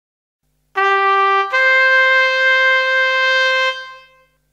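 A solo brass horn sounds two notes: a short lower note, then a step up to a higher note held for about two seconds before it fades away.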